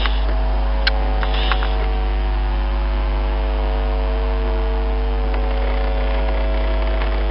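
Steady electrical hum, with a strong low drone and several fixed higher tones, and a couple of faint clicks about a second in.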